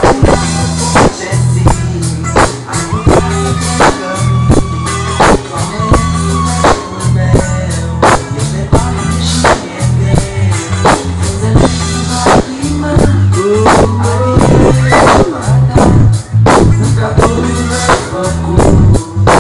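Amplified live band music: a drum kit keeping a steady beat over bass and electric guitar, with singers' voices.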